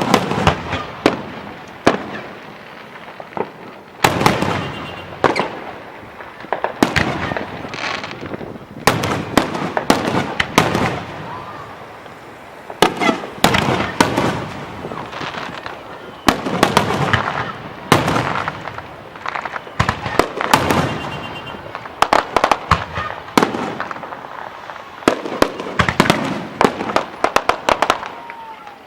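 Aerial fireworks display: shells bursting one after another with sharp bangs and crackle, often several in quick succession.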